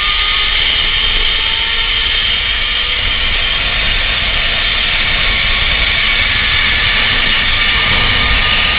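Steady whir of a zipline trolley's pulleys running fast along the steel cable, mixed with wind rushing over the camera microphone.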